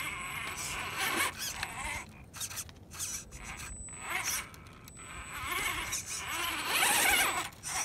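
Axial Wraith RC rock crawler's electric motor and gear train whining as it crawls over rock. The high whine wavers in pitch and swells and fades, loudest near the end.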